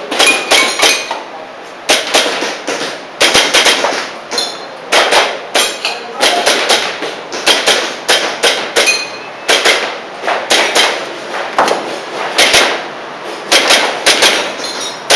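Airsoft pistol fired in quick strings of two to four shots, over and over, with sharp clacks of the shots and hits.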